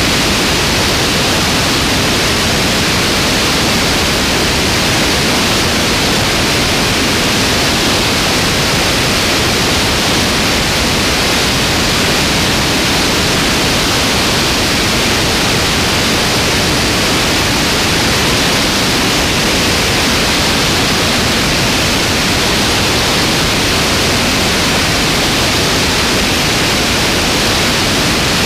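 Steady rush of airflow over a wing-mounted camera in flight: a loud, even hiss that doesn't change, with no engine or propeller tone standing out.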